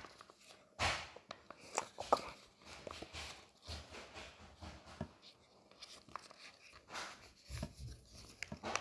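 Sheet of paper rustling and crinkling as it is folded and creased by hand, in irregular bursts.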